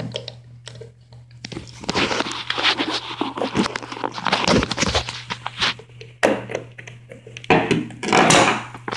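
Handling noise: a hand rubbing and knocking against the camera close to the microphone, with irregular thunks and scrapes. It is busiest from about two to five seconds in and flares again near the end, over a low steady hum.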